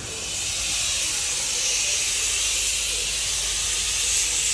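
Steam locomotive letting off steam with a steady, even hiss.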